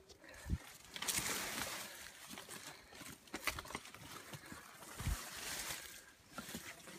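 Footsteps on a dirt and leaf-litter trail with leaves and twigs brushing and crackling past, and low thumps about half a second in and again around five seconds.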